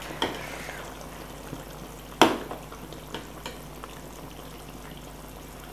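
Steel ladle stirring and lifting thick beef curry gravy in a large metal pot, with one sharp clink of ladle against the pot about two seconds in and a few lighter taps. The gravy bubbles gently underneath.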